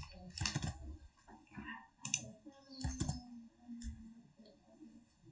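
Computer mouse clicks and keyboard keystrokes, a few separate, unevenly spaced clicks as text is selected, copied and pasted in a document.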